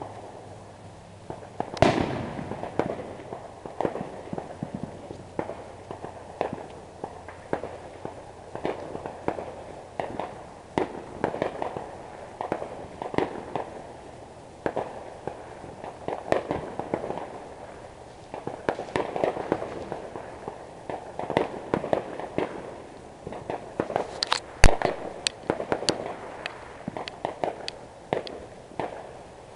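Neighborhood fireworks going off: an irregular, near-continuous run of bangs and crackling pops, with a strong bang about two seconds in and the loudest sharp bang near the end.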